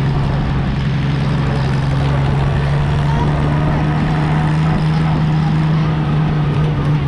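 Tractor engine running steadily at a constant speed under way, a low even drone.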